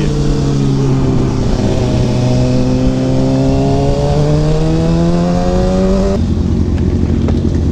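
Kawasaki ZX6R sportbike's inline-four engine pulling under way, its note climbing slowly and steadily in pitch for about six seconds, then breaking off abruptly into a rougher, lower sound.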